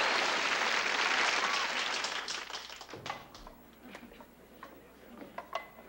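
Studio audience applause dying away over the first two or three seconds, followed by a few scattered light clicks and taps.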